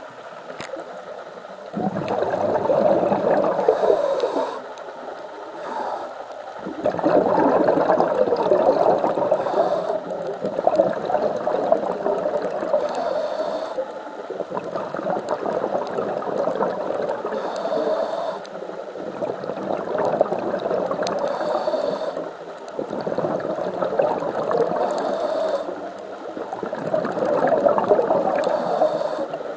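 Scuba diver breathing through a regulator, heard underwater. Each breath is a short high hiss on the inhale, followed by several seconds of bubbling exhaust, repeating every four to five seconds.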